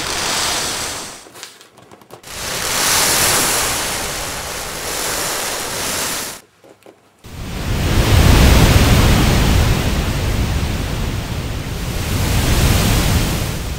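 Dried azuki beans sliding across a tilted bamboo sieve, a rushing hiss used as the classic imitation of waves on a shore. It swells and dies away twice, breaking off almost completely about a second and a half in and again near the middle, then comes back as a longer, fuller rush.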